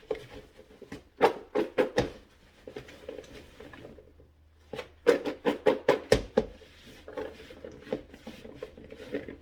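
Cut baby Dutch yellow potatoes knocking and rattling together as they are handled and dried, in two bursts of quick knocks, about a second in and again about five seconds in, with quieter rustling between.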